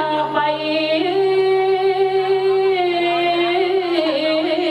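Background music: a voice singing a slow melody of long held notes over a steady low hum.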